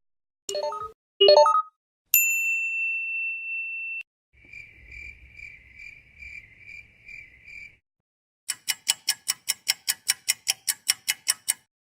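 A run of short stock sound effects: two quick pitched blips, a single high ding that rings out for about two seconds, a pulsing cricket-like chirp for about three seconds, then a fast series of ticks, about seven a second.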